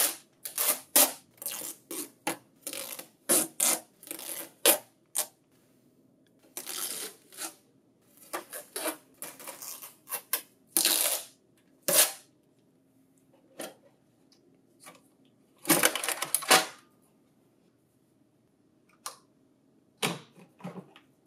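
Blue packing tape being peeled off a Lexmark B2236 laser printer's plastic casing: a string of short rips and scrapes, quick and close together at first, then spread out, with one longer rip about three-quarters of the way through.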